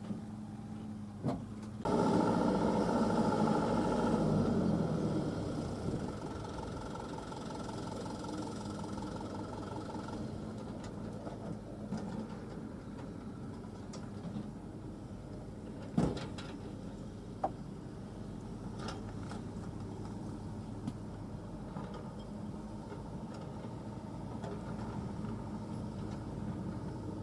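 Heavy diesel earth-moving machinery running steadily. About two seconds in there is a loud surge of noise lasting a few seconds before it eases off, and a few sharp knocks come later.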